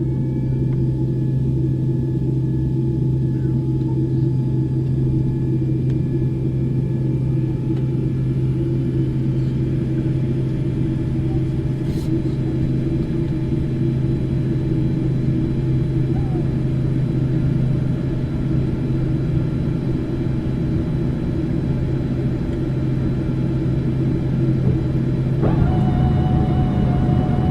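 Boeing airliner's jet engines running: a steady low drone with faint steady whines above it. Near the end a new, higher whine comes in and the sound grows slightly louder.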